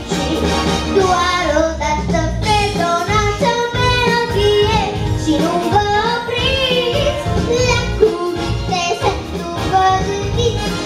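A young girl singing a song into a handheld microphone over backing music.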